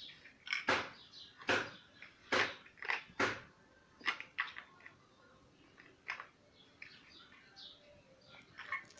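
Chunky plastic building blocks clacking together and knocking on a tiled floor: a string of short, sharp knocks at uneven intervals, thicker in the first half, then a few fainter ticks.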